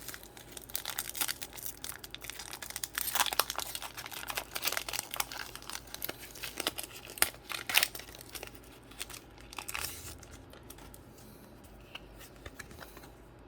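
Plastic wrapper of a Pokémon card pack being torn open and crinkled in the hands, a run of irregular rips and crackles that dies down over the last few seconds.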